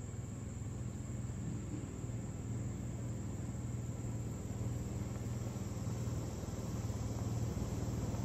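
Side-by-side utility vehicle's engine running as it drives up a dirt trail, a steady low drone slowly growing louder as it approaches, with a steady high insect trill behind it.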